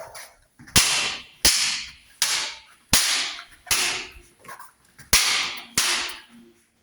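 Two steel ginunting blades clashing edge on edge in a full-contact sparring drill. There are about eight sharp metallic clangs, each ringing out briefly, at a steady pace of roughly one every 0.7 seconds.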